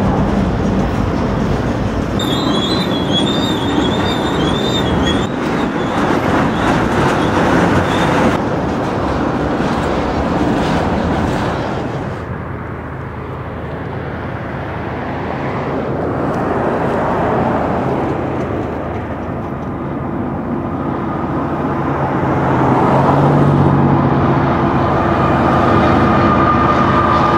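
Freight cars rolling past close by, steel wheels clattering on the rail with a brief wavering wheel squeal a couple of seconds in. Later a loaded coal train's diesel locomotives approach, their engine sound growing louder with steady tones near the end.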